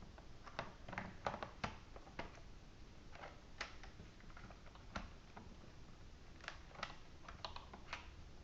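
Light, irregular plastic clicks and taps as a battery is fitted into an HP G62 laptop's case and the case is handled.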